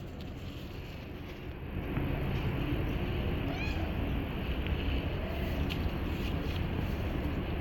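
A domestic cat meowing briefly over a steady low background rumble that grows louder about two seconds in.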